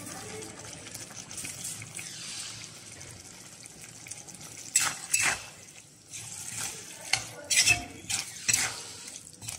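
Chicken mince in tomato sauce sizzling gently in an iron kadai, then a steel ladle stirring it, scraping and clinking against the pan in a run of short strokes from about five seconds in.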